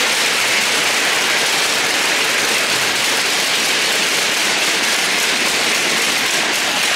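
Audience applauding, a steady dense clapping that holds an even level throughout.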